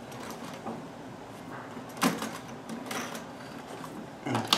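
Hands handling a sewing machine and its zigzag attachment: soft scattered clicks, one sharp click about two seconds in and a louder knock near the end.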